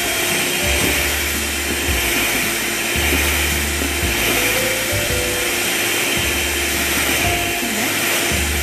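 Electric hand mixer running steadily, its twin beaters whipping a gelatin and sugar syrup into a white marshmallow foam.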